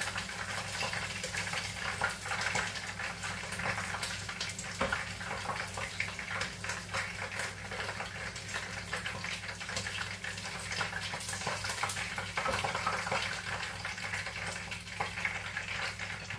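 Hot oil sizzling and crackling steadily in a wok as fried chicken wings are lifted out, with a few sharper clicks of metal tongs against the wok. A steady low hum runs underneath.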